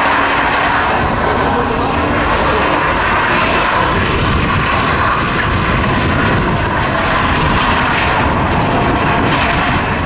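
BMW E34 drifting: its engine held at high revs and the rear tyres squealing and smoking as they spin, a loud unbroken sound.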